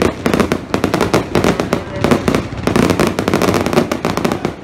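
Aerial fireworks display: shells bursting overhead in quick succession, a dense run of bangs and crackles with no pause.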